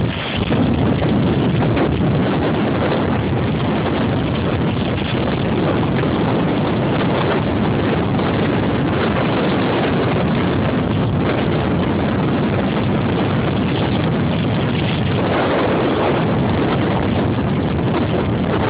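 Strong wind buffeting the microphone over the steady rush of large waves breaking on the shore.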